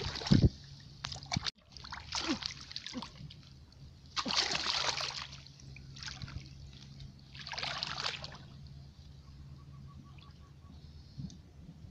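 Shallow muddy water splashing and sloshing as hands grope inside a bamboo plunge basket pressed into a flooded rice field, in separate bursts a few seconds apart, the loudest near the start.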